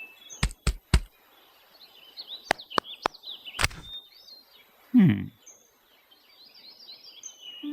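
Forest ambience of birds chirping, with a few sharp knocks near the start and again around the middle, and a loud low sound sliding down in pitch about five seconds in.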